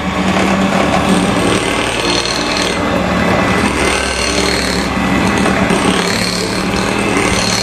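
Philips Cucina electric hand mixer running at its lowest speed, its beaters working thick cake batter in a glass bowl: a steady motor hum under a dense rattle.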